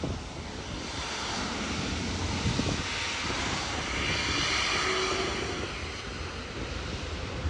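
Airbus A350 jet engines at low taxi thrust as the airliner rolls past: a steady rushing whine that swells to its loudest about four to five seconds in, then eases off.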